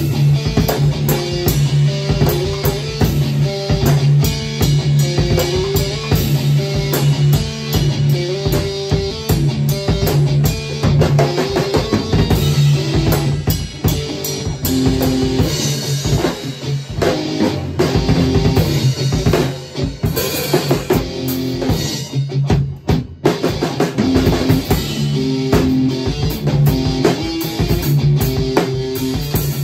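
Drum kit and electric guitar playing together: a busy drum beat with cymbals under a repeating low guitar riff. The band drops out for a moment about three-quarters of the way through, then carries on.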